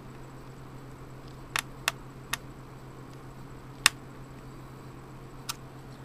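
A screwdriver tightening a laptop CPU heatsink's retaining screw: five short, sharp clicks spread over a few seconds, the fourth the loudest, over a steady low hum.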